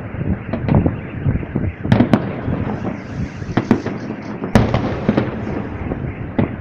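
Fireworks display: aerial shells bursting in quick succession, sharp bangs over a continuous din of smaller reports. The heaviest bangs come about two seconds in and again past four seconds.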